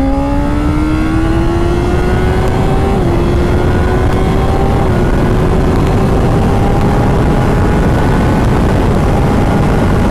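Honda CBR600RR's inline-four engine, with a full exhaust system, pulling hard under sustained acceleration. Its note climbs steadily in pitch with two small brief dips, over heavy wind rush on the microphone.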